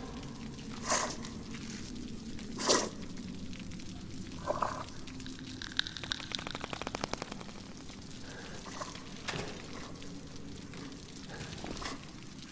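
Tense film sound design: a low steady drone with scattered sharp drip-like ticks, the sharpest about three seconds in, and a rapid run of clicks at about six seconds lasting over a second.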